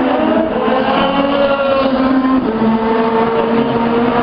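IndyCar race cars running at high revs on the straight, several engine notes overlapping; one note steps down in pitch about two and a half seconds in.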